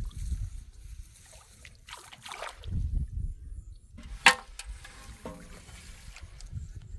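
Water sloshing and trickling, with a single sharp click about four seconds in.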